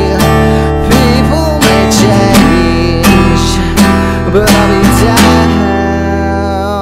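Instrumental section of a band's song: strummed guitar over regular drum hits. About five seconds in the hits stop and a held chord rings on.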